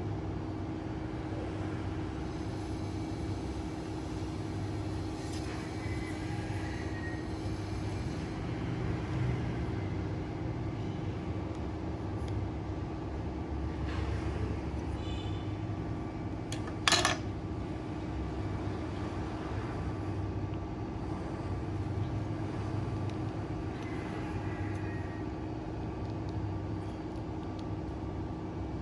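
Steady low background rumble with a steady hum. A single short, sharp click comes about two-thirds of the way through.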